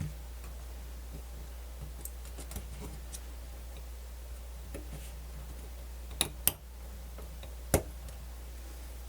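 Small clicks and taps of fingers and tools on the plastic and metal parts of a portable MiniDisc player as it is fitted back together and a ribbon cable is pushed into its connector, with three sharper clicks in the second half, over a steady low hum.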